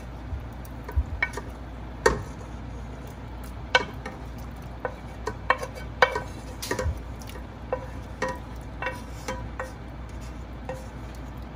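Wooden spoon scraping and knocking against a metal frying pan as sliced sausage is pushed off it into a pot of broth. The knocks come irregularly, a few each second, some with a short metallic ring.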